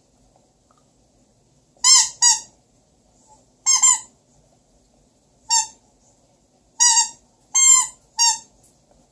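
Squeaky toy gnomes squeezed, giving about seven short, high squeaks: a pair, then a double, a single, and a quick run of three near the end.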